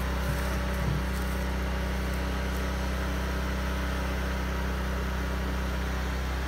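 Steady hum and hiss of an oxalic acid vaporizer rig driven by a generator and air compressor, blowing hot acid vapour into a beehive entrance.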